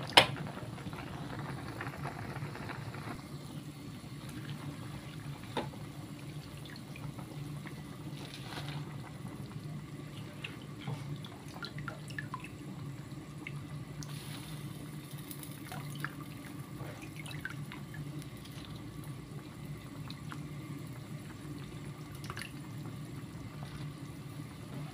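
Chicken soup simmering in a metal pan: steady bubbling with scattered small pops and clicks over a low steady hum. A sharp knock comes right at the start.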